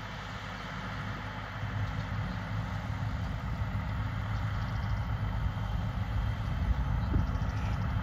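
International Harvester tractor pulling a New Holland round baler while baling hay, its diesel engine running steadily and growing louder as it comes closer.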